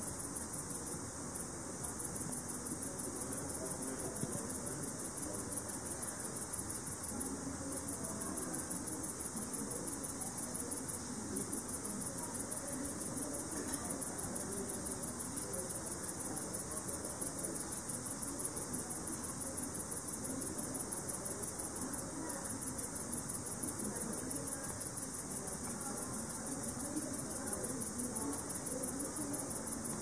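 Speckled bush cricket stridulating: a rapid, even train of high-pitched ticks that breaks off briefly a few times.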